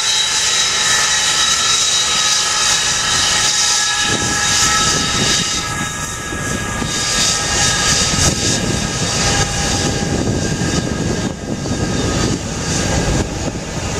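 Avro Vulcan bomber's four Olympus turbojets running at taxi power, a steady high whine over a loud rush of jet noise. A deep rumble joins about four seconds in and stays as the aircraft starts to roll.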